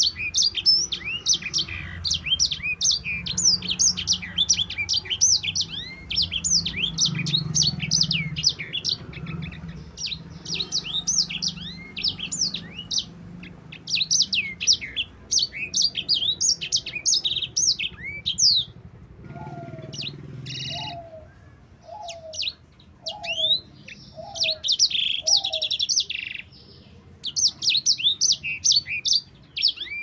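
Caged sanger (white-rumped seedeater) singing long, rapid runs of high chirps and trills, broken by a few short pauses. Past the middle, a lower call repeats six times at an even pace.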